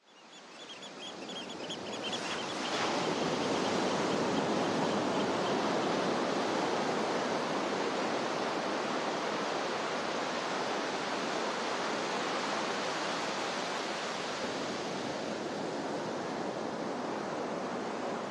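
Ocean surf washing onto a beach: a steady rush of waves that fades in over the first few seconds and then holds.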